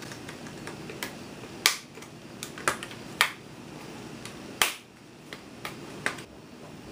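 Plastic screen bezel of an HP ProBook 4530s laptop being pried off the display lid, its retaining clips popping loose in a series of sharp clicks, about eight of them, the loudest about a second and a half in and again just past the middle.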